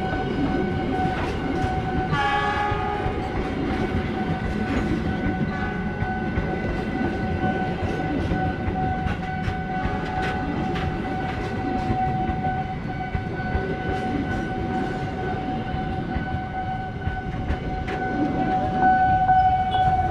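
A passenger train running past a level crossing with a steady rumble and wheel clatter, and a short horn blast about two seconds in. A steady warning tone from the closed crossing rings throughout.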